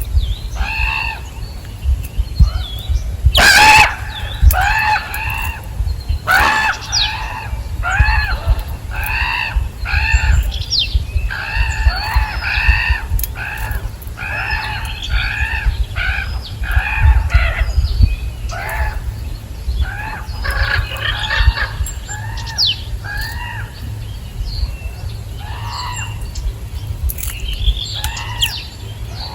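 Birds calling over and over: a dense run of short, harsh, arched calls, about two a second, over a low rumble, with two sharper, louder sounds a few seconds in.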